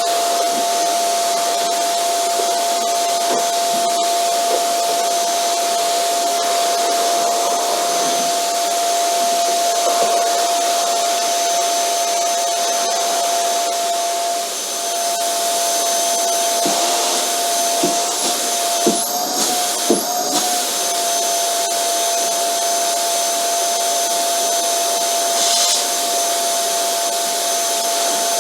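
Vacuum cleaner running steadily: a rushing airflow with a constant whine from the motor. About two-thirds of the way through come a few short knocks and a brief wobble in the whine.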